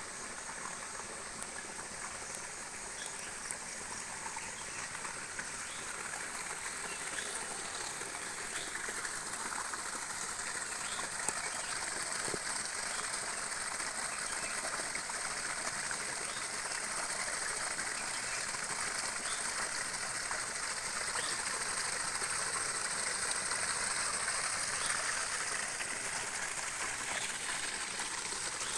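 Falling water of a waterfall, a steady rushing and splashing that grows slightly louder partway through, with a thin, steady high-pitched whine above it.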